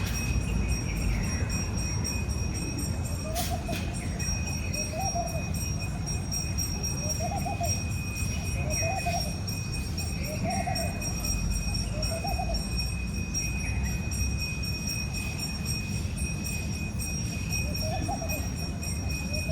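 Nature ambience: a steady low rush under a few steady high-pitched tones, with a short animal call repeating about once a second and pausing for a few seconds in the later part.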